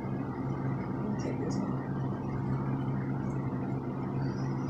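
A steady low machine hum, like a motor or appliance running, with a few faint small clicks about a second and a half in.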